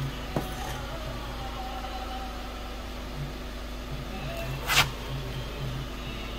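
Removed aluminium oil filter housing being handled: a light click near the start and a sharp metallic clack about three-quarters of the way through, over a steady low hum.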